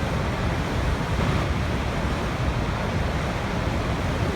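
Waterfall: a continuous, steady rush of falling water with no breaks.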